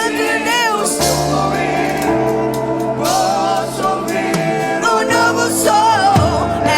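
Live gospel worship music: singing voices with wide vibrato over sustained instrumental chords and bass notes. Low drum beats come in near the end.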